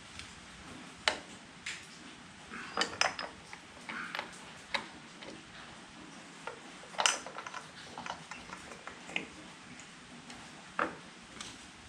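Irregular metallic clinks and knocks of tools and parts being handled during motorcycle transmission repair work. The strongest knocks come about a second in, around seven seconds and near the end.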